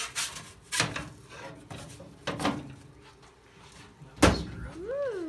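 Stainless steel hood and fittings of a Hasty-Bake charcoal oven being handled: a series of knocks and clanks, the loudest about four seconds in as the hood is lifted, followed by a short squeak that rises and falls in pitch.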